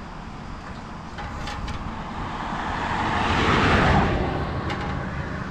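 A road vehicle passing by: its noise swells to a peak about four seconds in, then fades.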